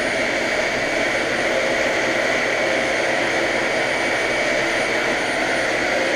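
Vacuum cleaner running steadily, with a constant high whine over its motor and airflow noise.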